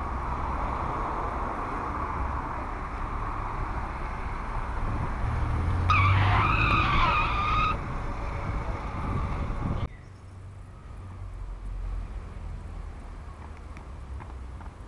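Street traffic hum with a car passing close; about six seconds in, its tyres squeal for a second or two in wavering high tones. Two-thirds of the way in, the noise drops away suddenly to a quieter outdoor background.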